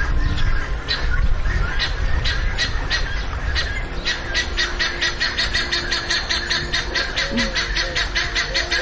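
Hippopotamus calling: a low grunt at the start, then a fast, rhythmic run of honking pulses, about five a second.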